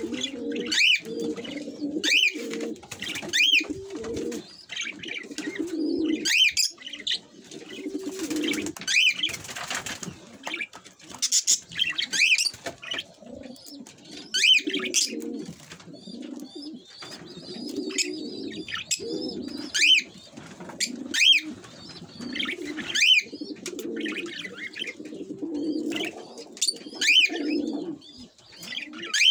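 Caged budgerigars calling: many short sharp chirps over a lower, longer warbling chatter that comes and goes.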